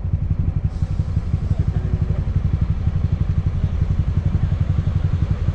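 Motorcycle engine idling at a standstill, a steady, evenly pulsing low rumble.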